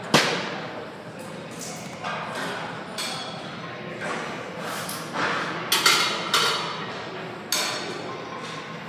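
Metal gym equipment clanking: a sharp knock at the start, then an irregular run of ringing clanks and thuds, one of the loudest about six seconds in.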